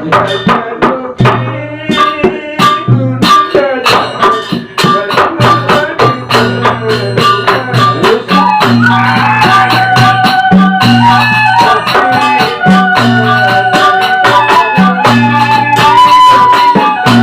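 Wayang Sasak gamelan ensemble playing a gending: a fast clatter of percussion over repeated low drum strokes, joined about eight seconds in by a held, wavering high melody line.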